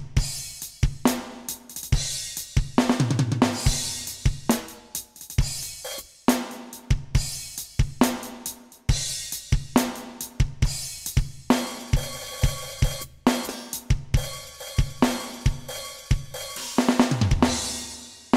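Alesis Nitro Mesh electronic drum kit played through its custom sampled sounds, recorded direct rather than from the pads: kick, snare, hi-hat and cymbal crashes in a busy groove. Runs of low pitched hits falling in pitch come about three seconds in and again near the end.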